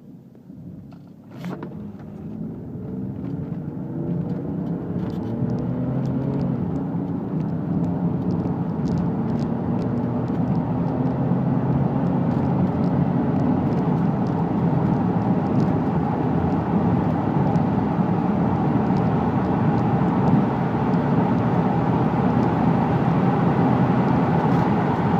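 BMW E32 7 Series petrol engine accelerating hard. A short click comes about a second and a half in, then the engine note climbs in pitch and grows louder over the next several seconds. It then runs on steadily at speed.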